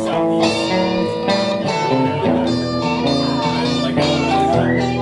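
Live blues played on an electric guitar and a harmonica, both amplified through small amps. Sustained, bending harmonica notes run over a repeating low guitar figure.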